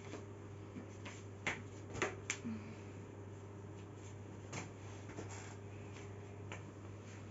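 Handling noise of a smartphone being turned over in the hand: a few faint, sharp clicks and taps, the loudest about one and a half and two seconds in, over a steady low hum.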